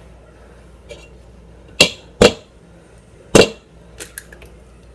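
An egg knocked three times against the rim of a stainless steel mixing bowl to crack it, three sharp taps, the last a little after the first two; a few faint clicks follow near the end as the shell is pulled apart.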